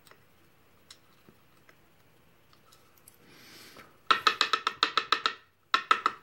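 A brass lock cylinder tapped rapidly against a wooden pin tray to shake the next pin out of its chamber while the lock is being gutted. It comes as two quick runs of sharp wooden knocks, about nine a second, starting about four seconds in, with a short break between them.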